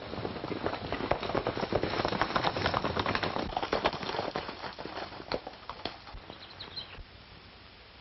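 Horses galloping on an old 1930s film soundtrack: a dense clatter of hoofbeats that thins out to scattered hoofbeats and grows quieter after about five seconds.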